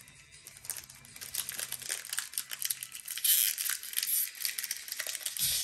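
Foil wrapper of a Pokémon TCG Lost Origin booster pack crinkling as it is handled and torn open. The loudest stretch of crinkly tearing comes about three seconds in.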